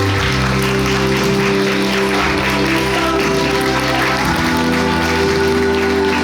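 Recorded music with held bass notes that change a few times, over steady audience applause.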